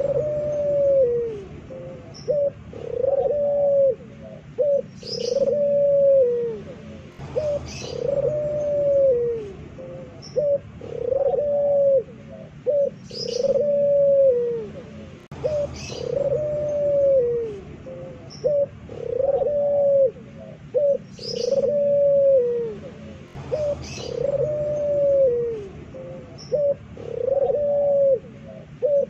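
Puter pelung (domestic Barbary dove) cooing over and over: a loud, drawn-out arched coo about every two and a half seconds, each led by a short note or two. Brief high chirps from another bird come in between the coos.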